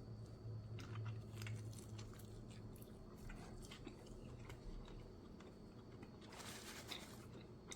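A person biting into and chewing a soft carne asada steak taco in an egg-white wrap: faint, scattered wet mouth clicks, with a brief breathy burst of noise near the end. A steady low hum sits underneath.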